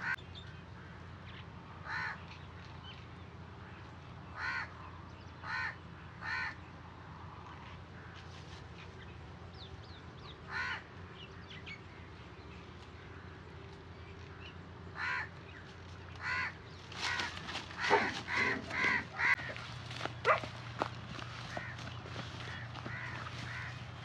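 Crows cawing: single short caws every few seconds, then a quicker run of louder caws near the end.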